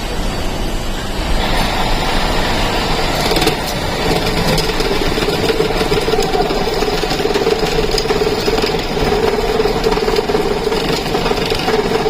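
Workshop machinery running steadily, with a steady hum that comes in about four seconds in and holds.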